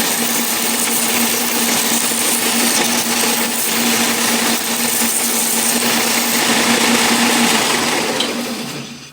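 Electric power sander running steadily as a wooden doorknob is shaped against it, a steady motor hum under the grinding hiss of the abrasive; the sander winds down near the end.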